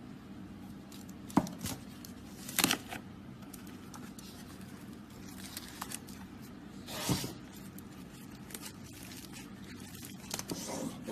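Hands playing with slime, quiet squishing broken by a few sharp pops and crackles: the loudest about a second and a half in, near three seconds and around seven seconds, with a run of small crackles near the end.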